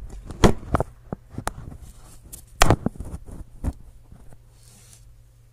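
A string of irregular sharp knocks and clicks with light rustling, dying away after about four seconds to a low hum.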